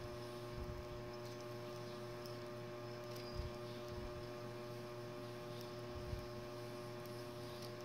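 Steady electrical hum made of several fixed tones, with two soft low bumps, about three and six seconds in.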